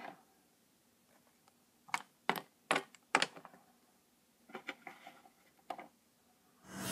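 Sharp plastic clicks and taps of toy figurines being picked up and set down on a hard plastic playset: about four distinct clicks in the middle, then a few fainter ticks. A loud swelling noise begins at the very end.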